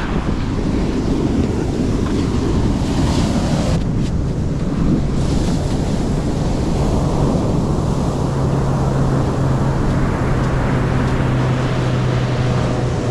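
Ocean surf breaking on a sandy beach, a steady wash of noise with wind buffeting the microphone. A steady low hum joins it about halfway through.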